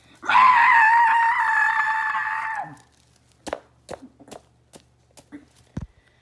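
A loud, high-pitched scream held on one steady pitch for about two and a half seconds, then several light taps and knocks as a sequin-covered plush toy is moved about on a wooden floor.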